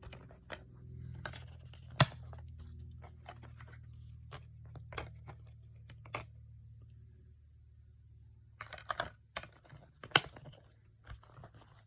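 Handling of a 4K Steelbook disc case and its contents: scattered light clicks and taps, with two sharp clacks, one about two seconds in and one near the end, and a quick flurry of clicks shortly before the second clack.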